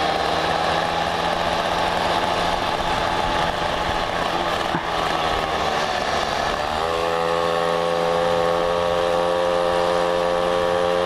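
Small two-stroke Mobylette moped engine running under way, heard from the rider's seat. About seven seconds in its note changes and settles into a steadier drone.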